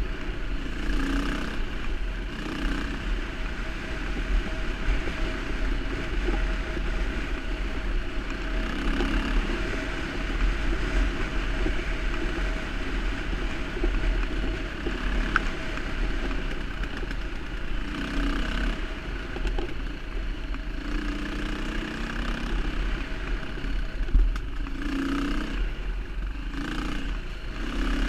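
Off-road motorcycle engine running along a dirt trail, with the revs swelling and dropping every few seconds over steady wind and trail clatter.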